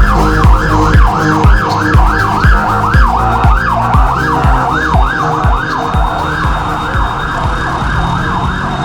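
Electronic music with a steady kick drum about twice a second under a siren-like synth wail that sweeps up and down in time with the beat; the drums drop away after about six seconds, leaving the wail and a held tone.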